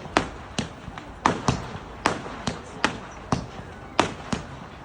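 Fireworks going off in quick, irregular succession: a dozen or so sharp bangs, two or three a second.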